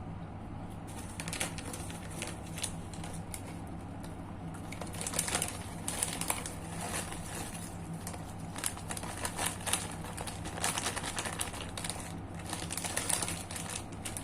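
Close-up crunching of crisp kerupuk crackers being chewed: a dense run of sharp crackling bites, over a steady low hum.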